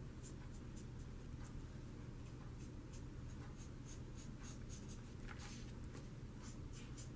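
Felt-tip Spectrum Noir marker scratching faintly across paper in quick, short, irregular colouring strokes, several a second.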